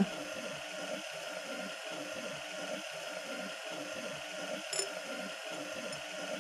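Water aspirator running on a fully opened lab tap: a steady rush of water through the aspirator into the sink, drawing vacuum on a Büchner filter flask. A single light tick about three-quarters of the way through.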